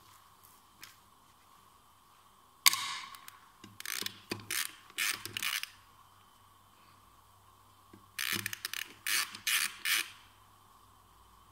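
Hand socket ratchet clicking as it turns bolts on a manual gearbox casing, in two runs of rapid clicks: one starting about three seconds in and lasting about three seconds, another from about eight to ten seconds.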